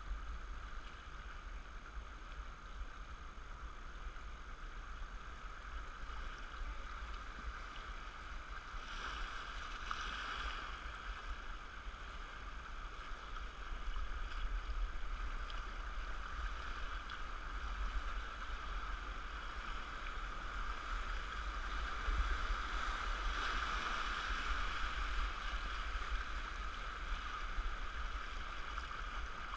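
Rushing water of a river rapid around a canoe, a steady wash with a low rumble underneath, swelling a little about nine seconds in and again past twenty seconds.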